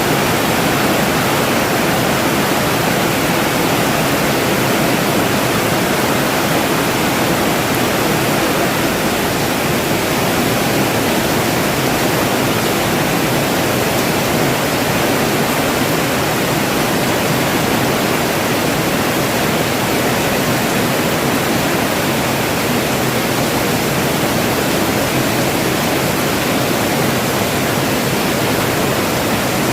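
Steady heavy rainfall, an even hiss of rain with no individual drops standing out.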